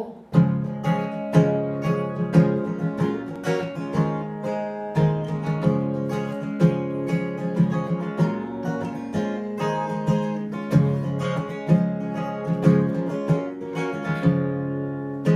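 Acoustic guitar strummed in a steady rhythm, the instrumental intro of a song just after a count-in.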